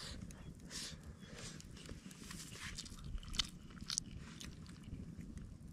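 A person chewing a mouthful of vegetable rice close to the microphone, with irregular short wet mouth clicks.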